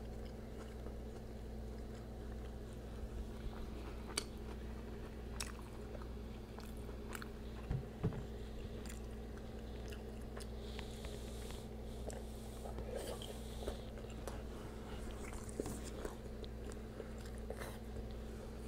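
Close-up chewing and biting of a crisp, toasted Oaxaca-cheese taco shell filled with steak and guacamole, with scattered short crunches. A steady low hum runs underneath.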